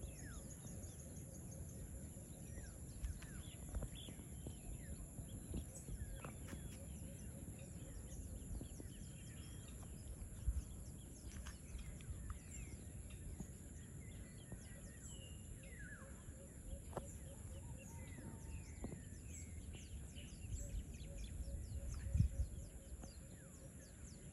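Outdoor ambience of scattered short bird chirps over a steady high-pitched buzz and a low rumble, with one brief louder low thump near the end.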